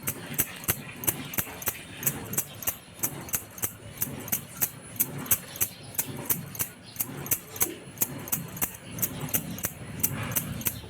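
Herbs and soaked almonds being rubbed back and forth on a stone rubbing slab (sahan) to make a balguti paste, with a steady rhythm of about two to three sharp strokes a second.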